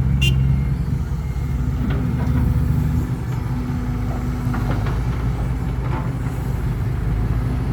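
Heavy diesel dump truck engine running, a deep steady rumble that eases a little about three seconds in, with one short click near the start.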